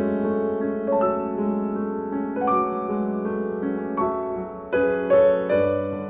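Background piano music: a slow melody, a new note struck about every second over held chords.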